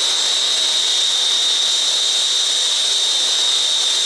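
Air-acetylene turbo torch with an A5 tip burning steadily on a copper tubing joint during hard soldering: a constant hiss with a steady high whistle running through it.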